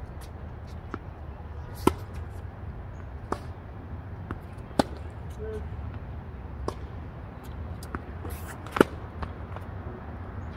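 Tennis rally: sharp pops of a racket striking the ball about every one and a half to two seconds, with softer knocks of the ball bouncing on the hard court between, over a low steady rumble.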